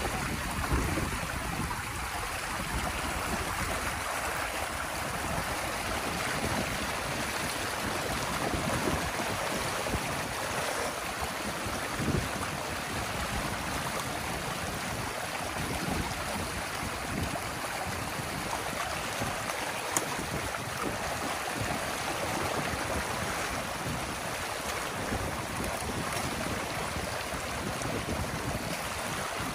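Water rushing steadily through a breach in a beaver dam as sticks and mud are pulled out of it, with a couple of brief splashes.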